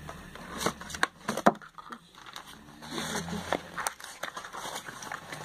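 A small cardboard perfume box being handled: a few sharp clicks and taps about a second in, then light rustling and scraping.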